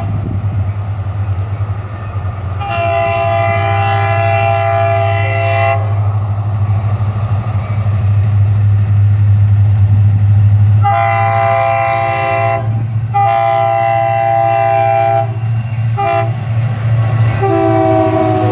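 Diesel freight locomotive air horn blowing for a crossing as the train approaches. One long blast, a pause, then two long blasts, a short one and another long one, the last just starting to drop in pitch. A steady diesel engine rumble runs underneath.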